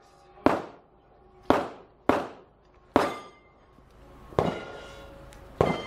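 Six gunshots, sharp cracks at uneven spacing, each with a short echo. They come from shooters on other bays of the range.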